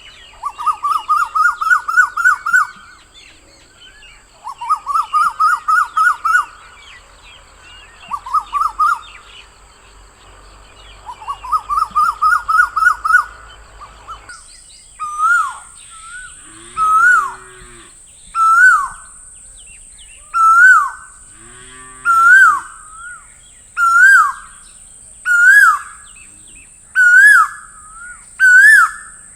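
Asian koel calling: first four quick runs of rising whistled notes, each lasting two to three seconds, then, after about half the time, single loud rising-and-falling "ko-el" notes repeated roughly every second and a half. A fainter, lower hooting sound comes twice during the second part.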